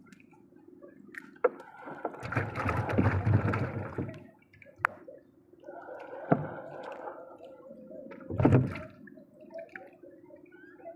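Water splashing and sloshing in two longer rushes, the loudest splash near the end, with a few sharp knocks in between.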